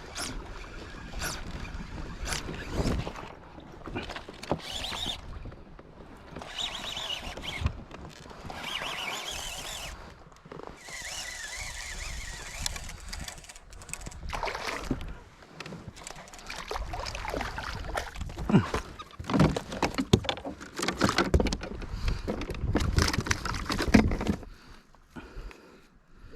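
Handling noise of reeling in and landing a hooked bass: irregular clicks, knocks and rustles, with stretches of hissy noise, and a busier run of knocks near the end.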